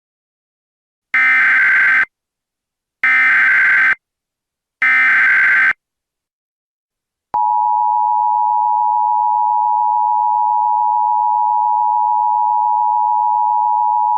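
Emergency Alert System tones: three short bursts of the buzzy SAME header data, about a second apart. About seven seconds in, the EAS attention signal starts, a steady two-note tone held without a break.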